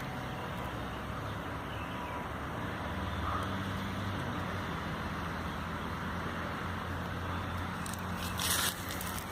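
Steady low rumble like a running engine or distant traffic, with a brief noisy rustle about eight and a half seconds in.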